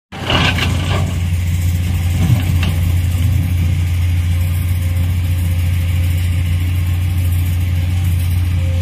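A Komatsu PC210 hydraulic excavator's diesel engine runs at a steady pitch. In the first three seconds there are a few brief knocks and clatter as dirt and stones fall from the bucket.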